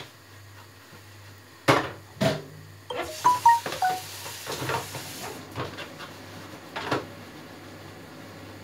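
Kitchen clatter of dishes and utensils: two sharp knocks, then a run of clinks and rattles with brief ringing tones and a short hiss, and a couple more knocks, over a low steady hum.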